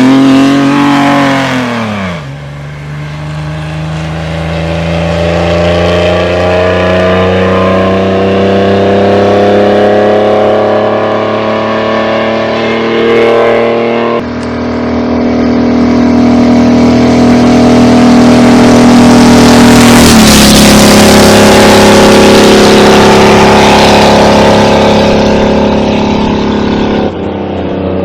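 Vintage racing car engines under power, their note climbing steadily as the car accelerates. Partway through, another car's engine comes in, getting louder and peaking with a small drop in pitch as it passes close by, about twenty seconds in.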